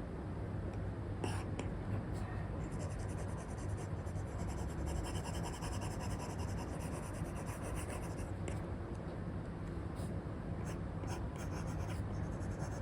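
Apple Pencil 2 with an Elecom nib scratching and tapping across a paper-like film on an iPad screen. Scattered sharp taps are heard, and through the middle comes a run of quick back-and-forth hatching strokes.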